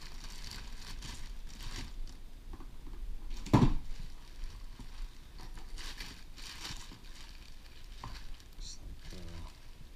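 Clear plastic bag and air-column packaging crinkling and rustling as they are handled, with one loud thump about three and a half seconds in.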